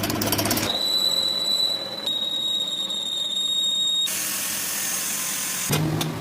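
Workshop machinery in a high, steady whine with a brief break in the middle. It is cut abruptly to a hissing noise, and then to a lower hum near the end.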